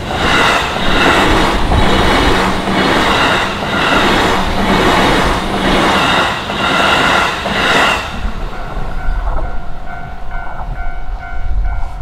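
A JR Yokohama Line E233-series electric commuter train passing over a level crossing, its wheels clacking over the rail joints in a steady rhythm for about eight seconds. The crossing's electronic warning bell rings throughout and carries on alone once the train has gone.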